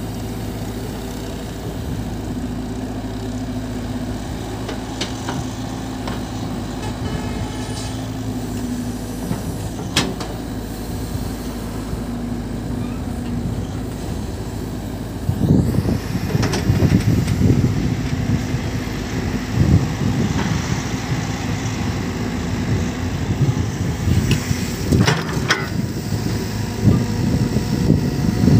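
Cat 313 excavator's diesel engine running at a steady pitch, then working louder and more unevenly under hydraulic load from about halfway, as the machine digs sand and loads a dump truck. A few sharp metallic knocks stand out, one about a third of the way in and a pair near the end.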